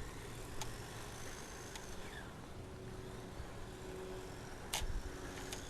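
Battery-powered 1:10 RC monster truck driving at about half speed, its motor heard faintly as a steady whine, with a few sharp clicks, the loudest near the end.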